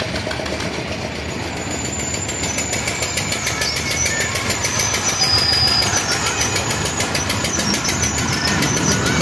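Fairground toy train running on its steel track and coming closer: a steady rumble of wheels and drive that grows louder, with thin high squeals over it.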